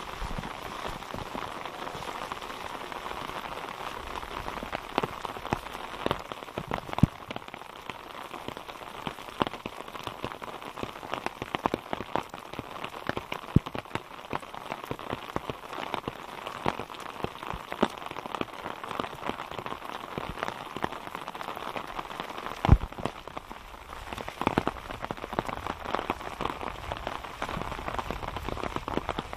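Steady rain falling, an even patter with scattered, irregular louder drop hits close by. One sharper knock stands out about twenty-three seconds in.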